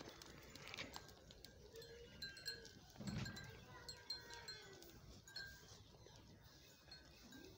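Faint sounds of a mixed flock of sheep and goats feeding, with short, high ringing notes scattered throughout and a low, dull thump about three seconds in.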